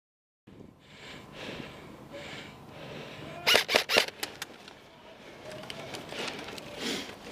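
An airsoft rifle firing a quick string of sharp clicks, about half a dozen in under a second, over the rustle of a player moving in cover.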